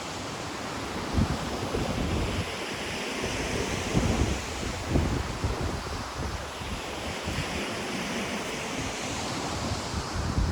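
Ocean waves washing on the shore in a steady hiss that swells and eases, with gusts of wind buffeting the microphone as low rumbles.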